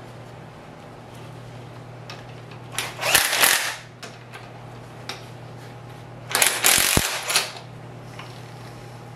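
Ratchet clicking in two bursts of about a second each as connecting-rod cap bolts are run down on an engine crankshaft.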